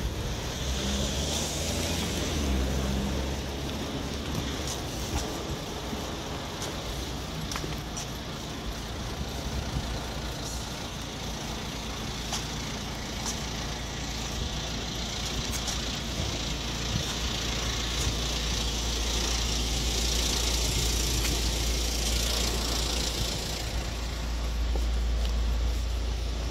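Street traffic: cars and trucks running and passing, a steady low rumble with hissing tyre noise that swells twice, once early and once for several seconds past the middle.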